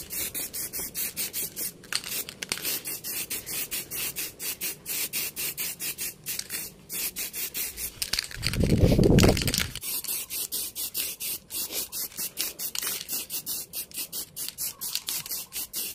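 Aerosol spray can of yellow enamel paint hissing as a second coat goes onto a plastic motorcycle fairing, the hiss pulsing rapidly and evenly. A louder low rumble comes in about eight seconds in and lasts nearly two seconds.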